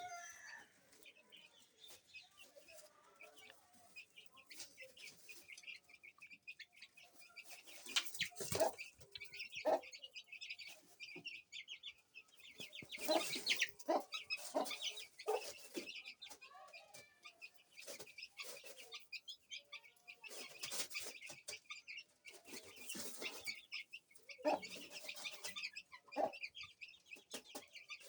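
Aseel hen clucking in short bursts every few seconds, while her chicks keep up a steady high peeping.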